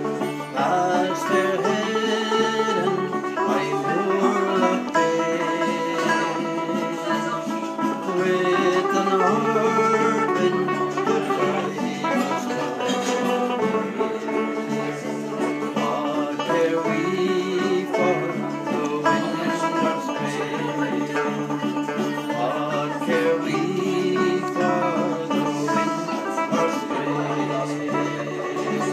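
Acoustic guitar played as accompaniment to a folk song.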